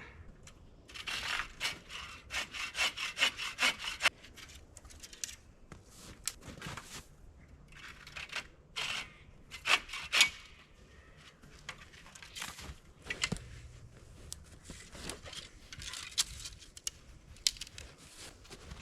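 Hand saw cutting wood in quick back-and-forth strokes, a fast run for about three seconds, then scattered shorter strokes.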